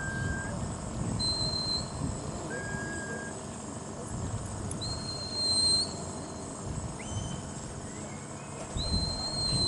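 A handler's herding whistle giving commands to a border collie working cattle: about seven short held notes in turn, some low and some high, each lasting half a second to a second, several ending with a slight upward flick. A high note about halfway through is the loudest. Wind rumbles on the microphone underneath.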